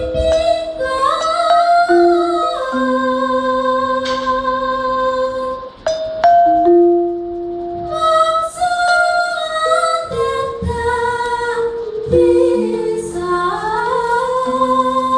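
Javanese gamelan ensemble playing a langgam. Bronze metallophones and gong-kettles ring under a woman singing a sliding, ornamented vocal line through a microphone.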